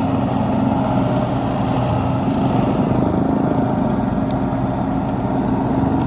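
Yanmar AW70V combine harvester's diesel engine running at a steady speed as the machine travels along on its tracks, a constant drone.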